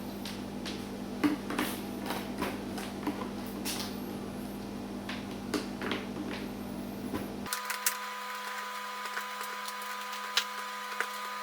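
Steady machine hum with scattered light clicks and taps. About seven and a half seconds in, the low part of the hum cuts out abruptly and a few steady high tones remain.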